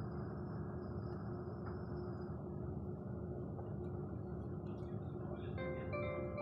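Cabin noise inside a CD Railjet passenger coach moving slowly through a station: a steady rumble with a faint hum. About five and a half seconds in, the on-board announcement chime begins, a run of stepped bell-like notes.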